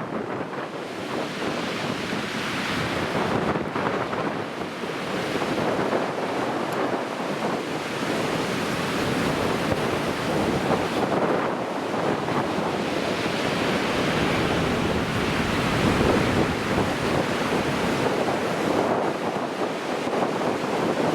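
Rough sea surf after a typhoon, waves breaking and washing continuously, with strong gusty wind buffeting the microphone.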